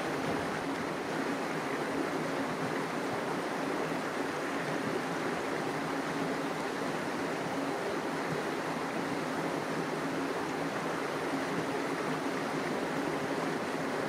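Steady, even rushing ambient noise outdoors, with no calls from the crow or the kite.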